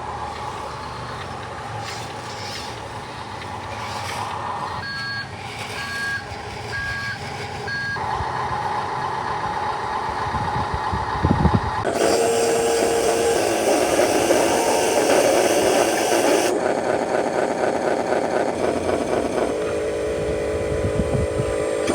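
Remote-control truck running, its reversing beeper giving about four short beeps about five seconds in. In the second half a louder, noisier mechanical sound takes over.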